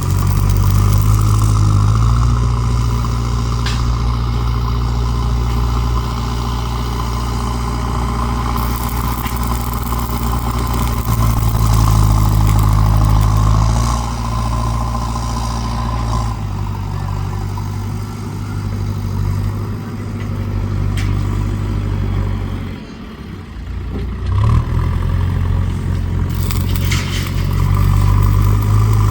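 A motor vehicle engine running steadily, its low hum shifting in level in stages, with a brief dip in level about three-quarters of the way through before it picks up again.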